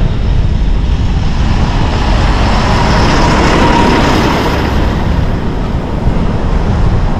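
City street traffic heard from a moving bicycle, over a steady low rumble: a vehicle passes close by, growing loudest about three to four seconds in and then fading.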